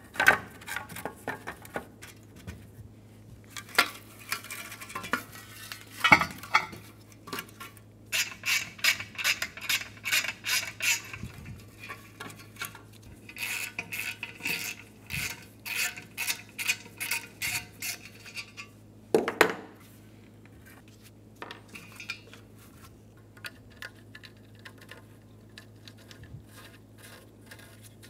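Hand tools on a rusty catalytic converter's heat shields and band clamp: sharp metal clinks and clanks, and two runs of quick, evenly spaced metallic clicking, each lasting a few seconds.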